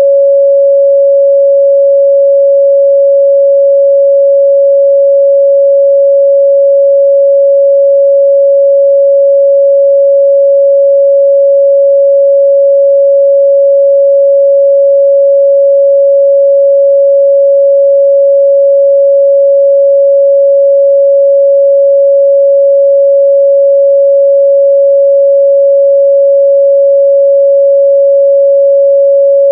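A steady, loud pure sine tone at 557 Hz, held unchanged, used as a test tone for checking speaker and headphone midrange response.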